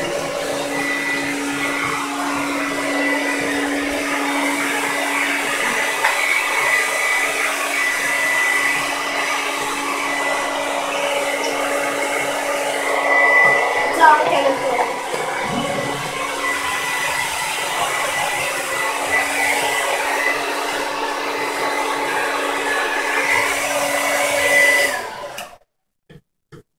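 Handheld hair dryer running steadily with a constant hum, blowing on a freshly bathed dog. It is switched off about 25 seconds in, and the sound cuts off sharply.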